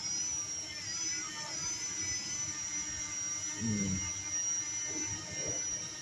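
Parrot Anafi quadcopter hovering low, its motors giving a steady high whine that wavers slightly in pitch. A man's short 'hmm' about three and a half seconds in.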